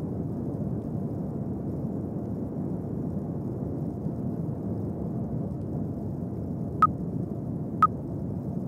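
Steady low rushing noise, with two short high-pitched countdown-timer beeps about a second apart near the end, marking the last seconds of a rest-break countdown.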